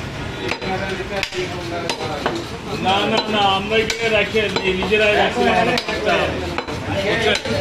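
Large butcher's knife chopping beef on a wooden log chopping block: sharp, irregular chops about once a second. People are talking from about three seconds in.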